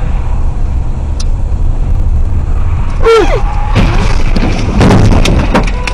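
Steady low road and engine rumble inside a car, picked up by a dashcam. From about three seconds in come loud bangs and crunching, loudest near the end: a collision among the cars just ahead.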